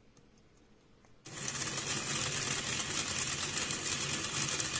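Small electric motor driving the 3D-printed gear train, wheels and coupling rods of a gauge one model locomotive chassis. It starts about a second in and then runs steadily with a high whirring rattle.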